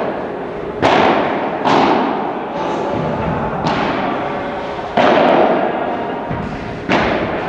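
Padel ball being hit back and forth with rackets in a rally: about five sharp hits, one every second or two, each ringing on in the echo of a large indoor hall.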